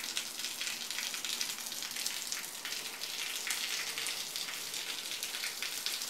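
Rain falling steadily outside open doors, a dense crackling patter of drops that runs without a break.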